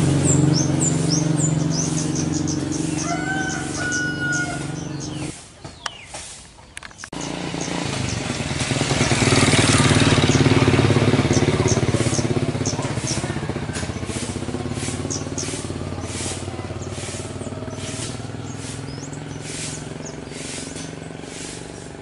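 Passing motor-vehicle engine noise, loud at the start, dropping away briefly about six seconds in, swelling again around ten seconds and then slowly fading. Many short high bird chirps run over it, with a few whistled notes early on.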